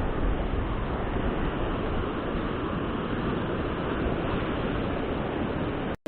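Steady wind rumble on the microphone over ocean surf breaking on the beach. The sound drops out abruptly for a moment near the end.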